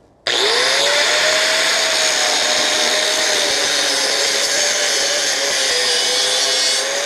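DeWalt DWE402 4½-inch angle grinder with a standard abrasive cutoff disc cutting through mild steel plate. It switches on about a quarter second in, and its whine climbs quickly, then holds steady over a loud grinding hiss as the disc cuts.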